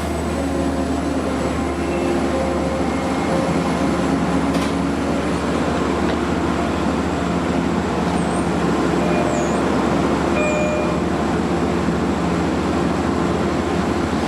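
DM30AC diesel locomotive and its double-deck train running steadily: an even engine drone under a broad rumble that swells slightly after about two seconds. A few faint bird chirps come through partway along.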